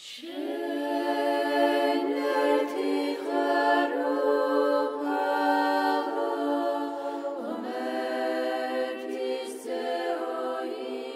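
Unaccompanied choir singing slow chant in held chords that shift every few seconds.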